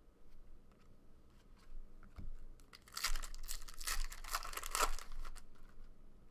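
Foil trading-card pack wrapper being torn open and crinkled by hand. There are a few light handling ticks, then a crackling burst of tearing and crinkling lasting about two seconds around the middle.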